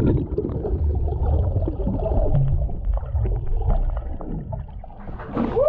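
Muffled underwater rumble and gurgling of moving water and bubbles, heard through a submerged camera. A rising vocal sound starts right at the end.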